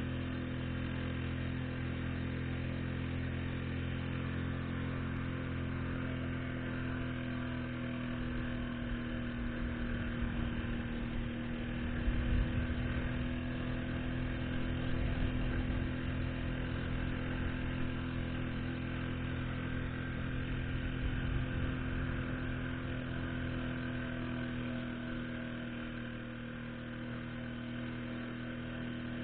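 Yamaha 4 hp outboard motor running at a steady, unchanging speed, driving an inflatable boat on the plane. A louder low rumble comes in about twelve seconds in.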